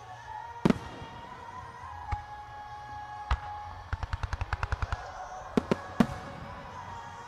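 Starmine fireworks going off: a sharp bang a little under a second in, single reports near two and three seconds, a rapid string of about a dozen pops in the fourth second, then three more bangs around the sixth second.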